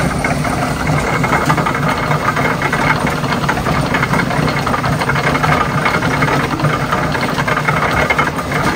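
Powered sugarcane mill (trapiche) running steadily while grinding cane: a loud mechanical drone with a fast, even rattle.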